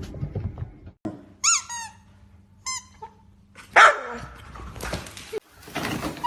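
A dog yelping: two short, high-pitched yelps, then one much louder, sharper cry just under four seconds in.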